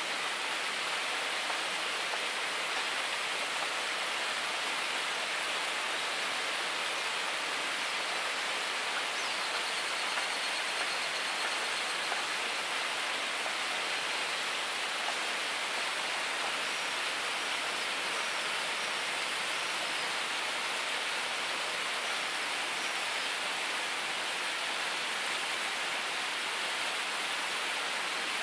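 Steady rushing of a river running close by, an even unbroken water noise.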